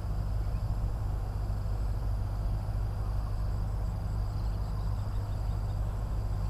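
Insects trilling steadily in high thin tones, with a few faint pulsed chirps past the middle, over a constant low rumble.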